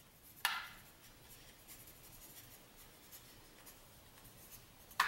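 Pencil rubbing and scratching over paper pressed against the mill's metal casting, making a tracing of the mount holes. There is a brief louder scrape about half a second in, then faint steady scribbling.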